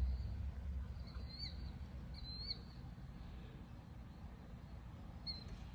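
Three faint short high chirps, a little over a second in, about two seconds in, and near the end, over a low steady hum.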